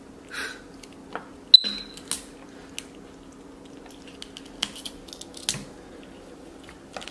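Capuchin monkey eating raw broccoli: scattered short crunches and snaps as it bites and tears the florets and stalks, with one sharp, loud click about a second and a half in. A steady low hum runs underneath.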